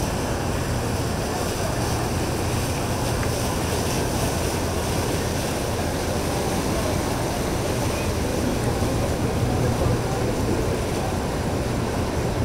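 Boat engine running steadily over the rush of churned water.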